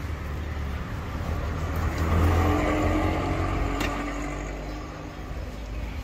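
A road vehicle passing by: its engine and tyre sound swells to a peak about two seconds in, then fades away.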